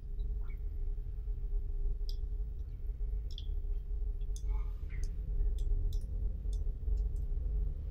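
Light, irregular clicks and taps of a small metal tool against an electromagnetic door lock's metal housing as it is handled, with a short scraping rustle about halfway, over a steady low hum.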